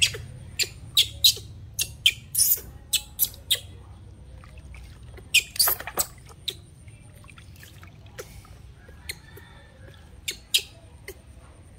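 Baby monkey giving short, sharp high squeaks while being bathed, with water splashing in a plastic basin. The squeaks come in bunches: many in the first four seconds, a longer run around five to six seconds, and a few near ten seconds.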